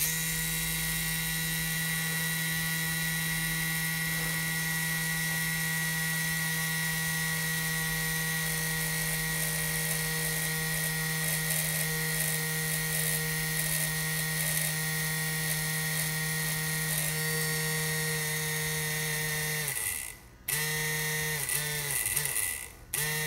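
Small DC motor spinning steadily, run directly off a bank of supercapacitors, with a steady whine. About 20 seconds in it winds down and stops as the contact is broken. It then runs in a few short stuttering spurts before running steadily again near the end.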